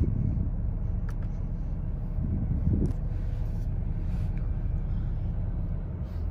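Inside the cabin of a Mercedes GLS 400d on the move: a steady low rumble from its 3.0-litre inline-six diesel and the tyres as it accelerates up through the gears.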